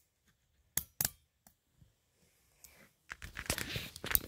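A few sharp metallic clicks of handcuffs being closed. About three seconds in comes a stretch of rustling, with more clicks and knocks among it.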